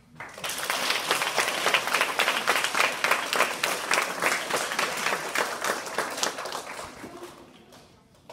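An audience of schoolchildren applauding, starting about half a second in and dying away over the last couple of seconds.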